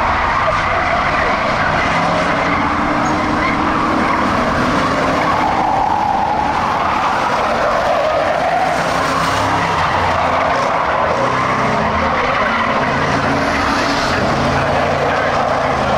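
A pack of Ford Crown Victoria race cars running laps, their V8 engines under power, with the engine pitch rising and falling as they go around.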